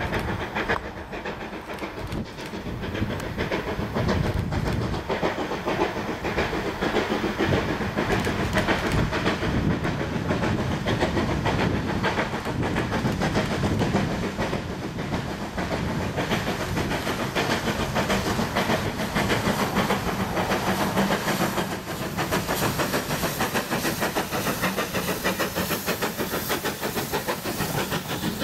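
GWR Collett 2251 class 0-6-0 steam locomotive working a passenger train: a fast, steady beat of exhaust chuffs with steam hiss as it approaches and passes close by. Its coaches then roll past.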